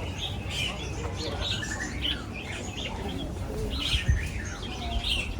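Birds chirping: many short, high chirps repeating over a steady low rumble, with a single sharp knock about four seconds in.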